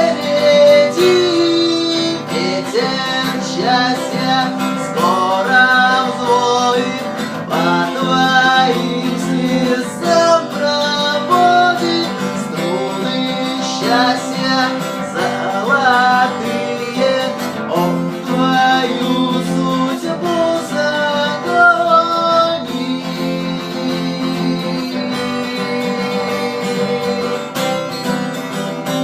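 Acoustic guitar playing an instrumental passage of the song, with strummed chords and a melody line over them.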